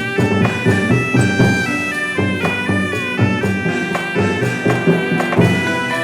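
Traditional music: a loud reed wind instrument plays a bending, sliding melody over regular drum and percussion strokes.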